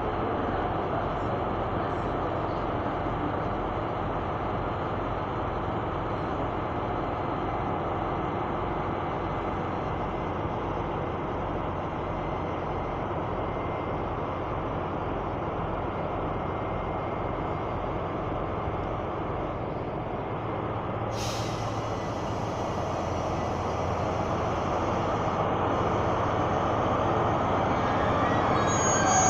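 Diesel engines of two DB Class 218 diesel-hydraulic locomotives running steadily, with a low even rumble. A single sharp click comes about 21 seconds in, and the engine noise grows louder over the last few seconds.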